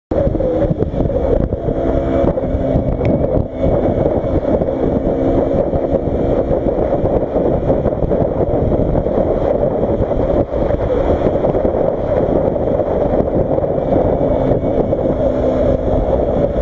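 KTM RC 125 motorcycle's single-cylinder engine running at a steady cruise, recorded on board over heavy wind rush on the microphone.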